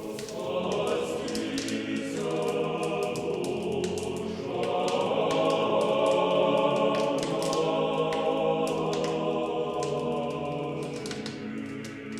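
Closing music: a choir singing slow, sustained chords that swell about four seconds in and ease off near the end, with a faint crackle of clicks throughout.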